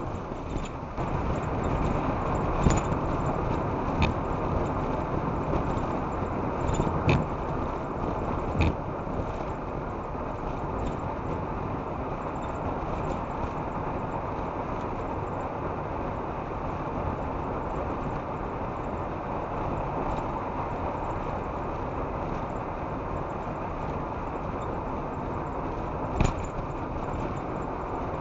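Steady road and tyre noise of a car at motorway speed, picked up by a dashcam inside the vehicle, with a few short sharp knocks scattered through it.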